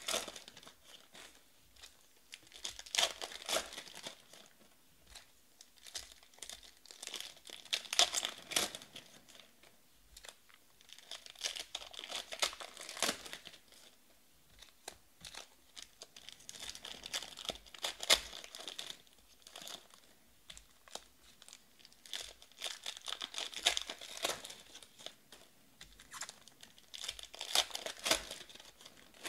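Foil trading-card pack wrappers being torn open and crinkled by hand, with the cards handled between packs: repeated bouts of crackling, crinkling and tearing with short pauses between.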